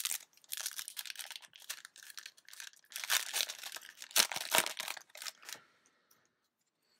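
Yu-Gi-Oh! foil booster pack wrapper crinkling and being torn open by hand, in an irregular run of rustles and crackles that stops about five and a half seconds in.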